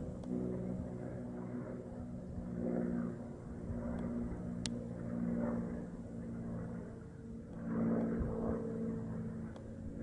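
An engine running with a steady low hum that swells and fades several times, loudest near the end; one sharp click a little before the middle.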